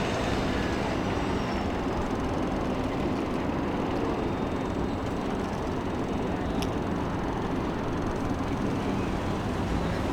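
SkyTrain train rumbling steadily along the track. A faint high whine fades out in the first second or so, and one sharp click sounds about two-thirds of the way through.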